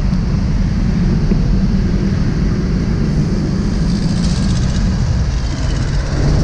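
Motorcycle engine running steadily amid street traffic, with a higher hiss rising briefly about four seconds in.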